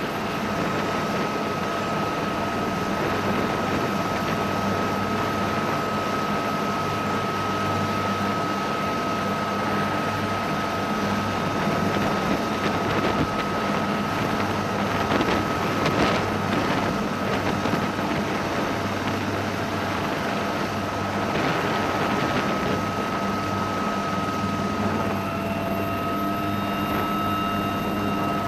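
AH-1Z Viper attack helicopter's twin turboshaft engines and four-blade rotor running up close, with a steady high whine over the rotor noise. The sound swells briefly around the middle as the helicopter lifts into a hover.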